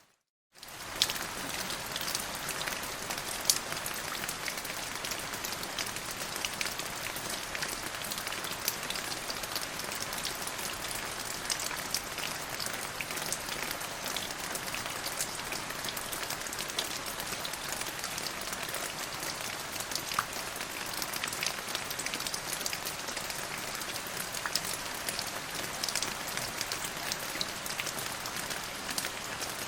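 Steady rain falling on a surface, a dense hiss with many individual drop taps. The sound cuts out for a split second at the very start, then comes straight back.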